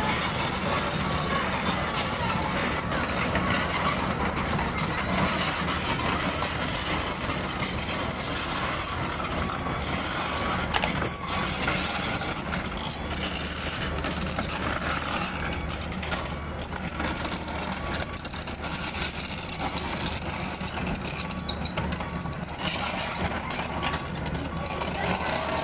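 Komatsu PC78US excavator's diesel engine running steadily, with a few short knocks over the steady noise.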